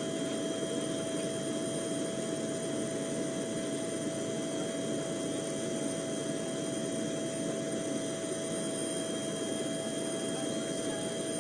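Helicopter engine running steadily: an unbroken drone with a constant whine over it.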